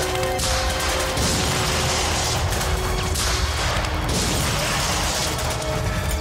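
Film battle soundtrack of a shelling: a deep rumble and several surges of crashing noise, under a held music drone.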